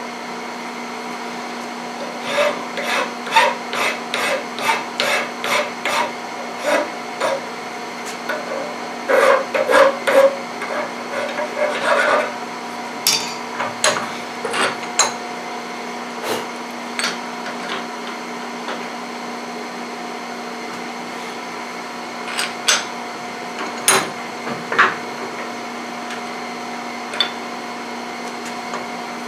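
Hand file rasping across the edges of a cast aluminum vise jaw to take off burrs, in strokes about two a second, then a denser flurry. Later come scattered sharp clicks and knocks of metal parts being set against the vise.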